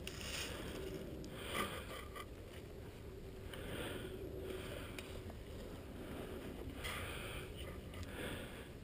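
A person's breathing close to the microphone: soft, even breaths, about one every one to two seconds.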